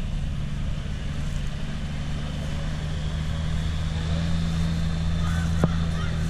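Vintage tractor engine idling steadily, with one sharp click near the end.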